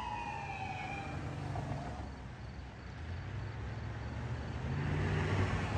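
Police car siren on a slow falling wail that fades out after about a second as the car pulls away. It leaves a low vehicle rumble that grows louder again near the end.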